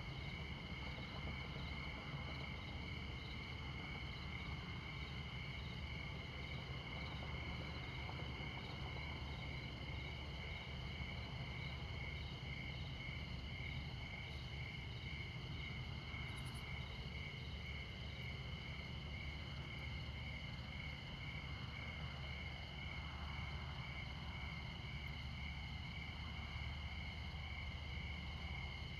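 Crickets chirping in a steady, rapidly pulsing trill, over the low, even rumble of interstate highway traffic.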